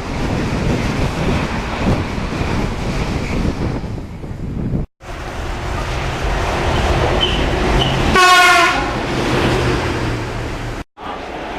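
Freight train passing with wind buffeting the microphone. After a cut, a diesel locomotive engine runs steadily and gives one short horn blast about eight seconds in.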